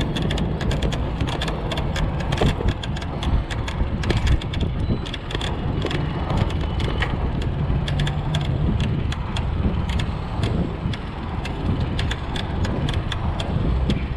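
Electric cargo bike being ridden: wind buffeting the microphone and road noise, with frequent short clicks and rattles from the bike.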